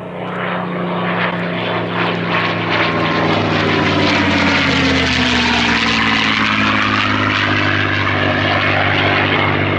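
North American P-51D Mustang's Packard Merlin V-1650 V12 engine running at power in a low flypast. It grows louder in the first second, and its pitch drops as the aircraft passes the listener.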